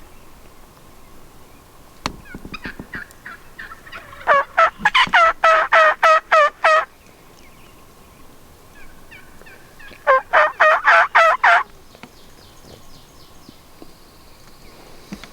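Turkey yelping in two loud runs of evenly spaced notes, about four a second. The first run of about ten notes starts softly a couple of seconds in and builds; the second, shorter run of about seven notes comes near the end.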